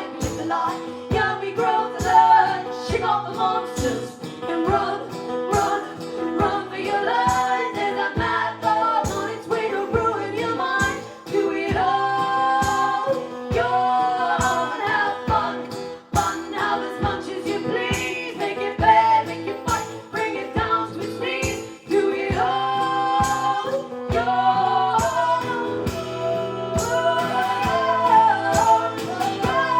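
Live folk-rock band music: women's voices singing in harmony over strummed guitar with a steady beat.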